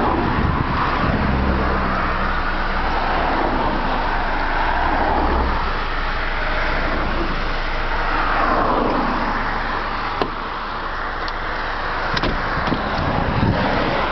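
Road traffic noise from passing cars, with one vehicle going past close by, rising and falling in pitch about eight seconds in.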